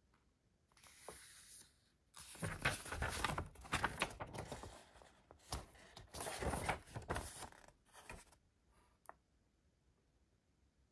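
Packaging being handled: irregular bursts of rustling and crinkling with small clicks and knocks, the loudest in the middle, then a single click near the end.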